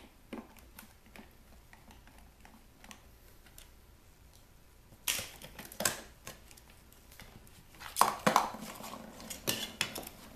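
Small hard clinks and rattles of hands working on a speaker cabinet's back panel, its screws and wire connectors being handled and pulled. Faint ticks at first, then louder clatter about five seconds in, and the loudest burst about eight seconds in.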